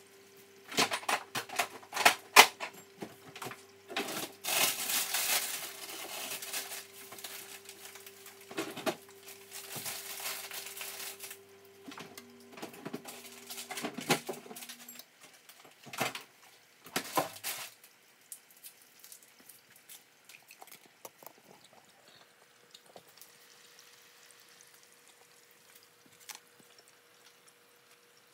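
Kitchen clatter at the stove: a run of sharp clicks and knocks from utensils and cookware, with a few seconds of rushing noise about five seconds in. It fades to a faint hiss for the last third.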